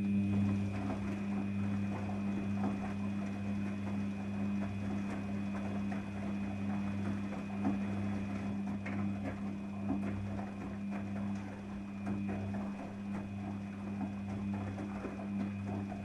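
Daewoo DWD-FT1013 front-loading washing machine's motor turning the drum during the wash phase of a synthetic 40°C program. It makes a steady hum with a thin high whine, over small irregular knocks and splashes of wet laundry tumbling in the water.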